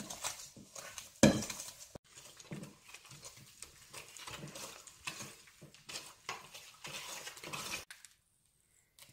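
A wire balloon whisk beating thick dough by hand in a stainless steel bowl: a quick, irregular run of scrapes and clacks of metal wires against the bowl. It stops abruptly about a second before the end.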